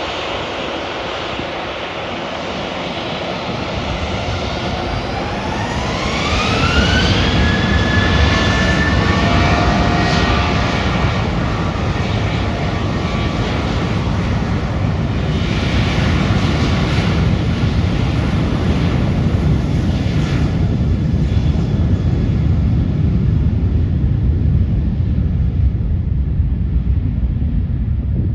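Boeing 737-700's CFM56 turbofan jet engines spooling up to takeoff thrust: a whine rises in pitch over a few seconds and then holds, over a loud, steady rumble. The whine then fades over the last several seconds while the rumble carries on.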